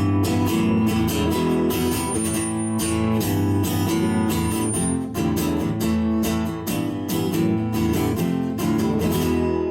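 Acoustic guitar strummed in a steady rhythm: the instrumental introduction of the song, before the vocal comes in.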